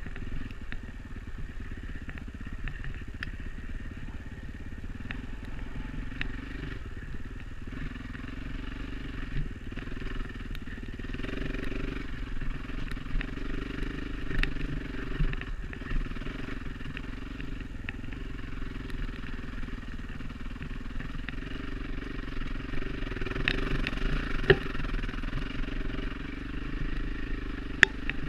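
Enduro dirt bike engine running steadily while riding a trail, with scattered sharp clicks and knocks.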